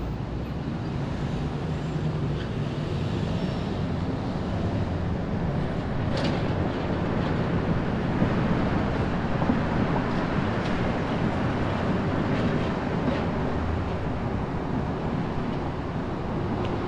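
Car being driven: a steady low engine and tyre rumble with a few short clicks or knocks.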